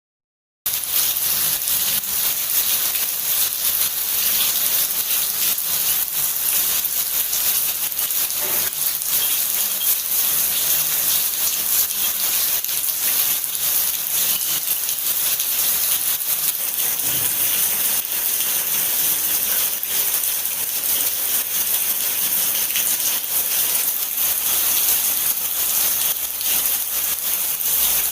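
Steady rain falling, a dense, even hiss that starts about half a second in and holds without a break.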